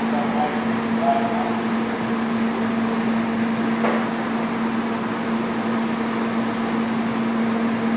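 MTA R160 subway train standing at the platform, its on-board equipment giving a steady electrical hum with one even low tone. A faint click about four seconds in.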